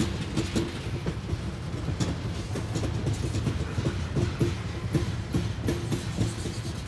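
Tank cars of a Norfolk Southern freight train rolling past. There is a steady low rumble, and the wheels clack over the rail joints again and again.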